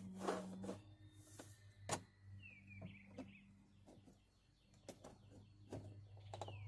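Sharp plastic knocks and clicks as a Chrysler Sebring's door trim panel is yanked by hand against its retaining clips, the loudest two about a third of a second and two seconds in. A bird chirps a few times in the background.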